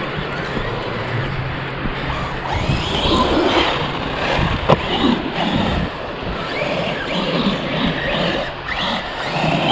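Corally Asuga 6S RC buggy's brushless electric motor whining, revving up and down repeatedly as it drives on Pro-Line Dumont paddle tyres, with wind rumbling on the microphone. There is a single sharp knock about halfway through.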